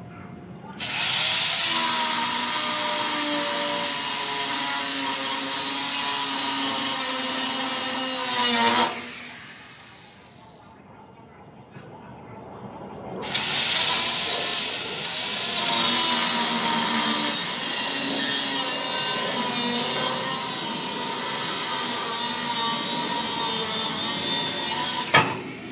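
Corded power tool cutting through the flatbed's metal rail in two runs: about eight seconds of steady cutting, a pause of about four seconds, then about twelve seconds more, ending with a sharp clank.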